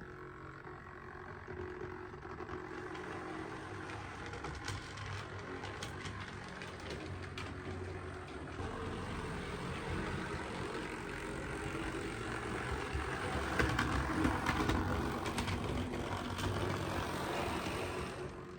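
An OO gauge model locomotive running along the track: a steady motor-and-wheel rumble that grows louder, peaks a little past the middle, then fades near the end as it moves away.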